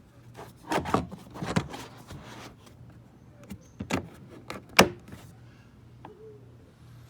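Plastic storage hatch on a pedal-drive fishing kayak being handled: a quick series of knocks and clicks about a second in, then two more sharp knocks near the end, the last the loudest.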